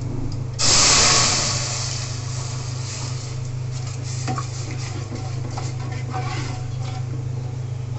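Cooked masoor dal poured into hot tempering oil and spices. About half a second in it hits the oil with a sudden loud sizzle that dies down over a couple of seconds into a softer sizzle. A metal ladle stirs the dal in the metal pot with a few knocks, over a steady low hum.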